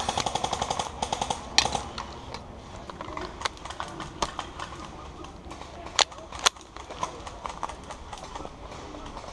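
Footsteps and rustling of a player moving on foot through brush, with scattered clicks and a few sharp snaps. A rapid, evenly pulsed buzzing runs for about the first second and a half, then stops.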